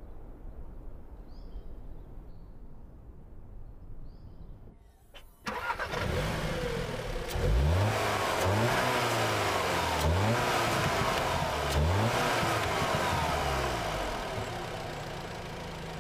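Audi S3's turbocharged 2.0 TFSI four-cylinder engine starting about five seconds in, then revved in a series of about six quick throttle blips, each rising and falling in pitch, before easing back toward idle.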